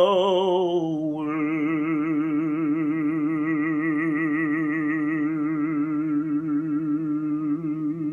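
A man's solo singing voice, unaccompanied, holding one long sustained note with a wide, even vibrato. The vowel shifts about a second in, and the note carries on to the end.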